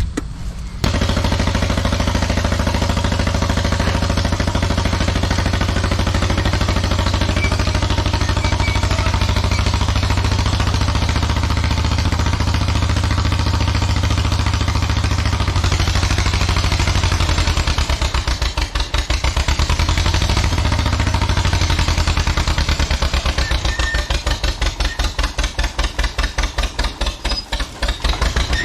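1954 John Deere 40C crawler dozer's two-cylinder engine running hard and steady, starting abruptly about a second in. In the second half its slow, separate firing beats stand out as a pulsing putt that dips and surges in level.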